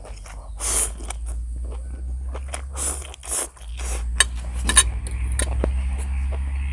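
Instant noodles with sausage being eaten: short noisy eating sounds with mouth and food, then two sharp clinks of a utensil against the dish about four seconds in, over a steady low hum.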